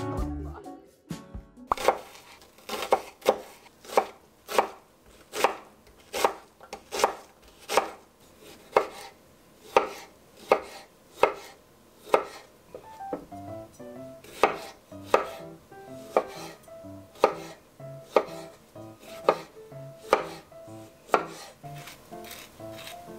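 Kitchen knife chopping tomatoes on a wooden cutting board: a run of sharp taps, roughly one or two a second. Soft music plays faintly beneath the taps in the second half.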